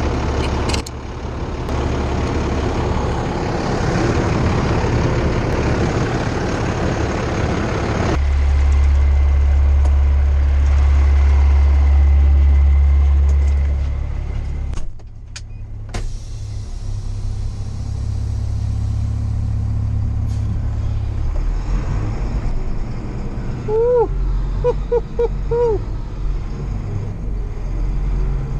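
International 4900 bucket truck's engine idling with a steady low rumble, louder for several seconds in the middle. A few short squeaks near the end.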